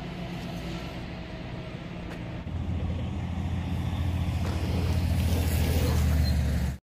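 A vehicle engine running: a low, steady hum that grows louder about two and a half seconds in, then cuts off suddenly.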